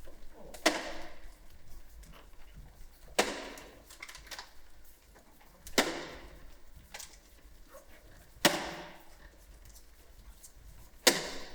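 Five sharp percussive hits, evenly spaced about two and a half seconds apart, each followed by a short rushing tail that dies away.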